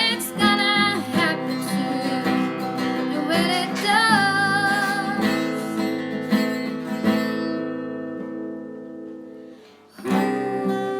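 Live guitar music at a sound check, with a voice singing over it in the first few seconds. About five seconds in, a chord is left ringing and slowly dies away; then the playing starts again near the end.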